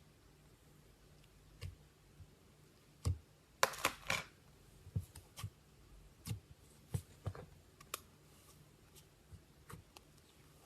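Clear slime being mixed with added ingredients by hand: scattered soft clicks and taps, with a short run of crackling about four seconds in.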